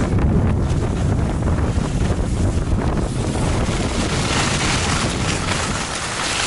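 Wind buffeting the pole-mounted action camera's microphone while skiing downhill: a loud, steady low rumble. A hiss of skis sliding on snow grows louder over the last two seconds.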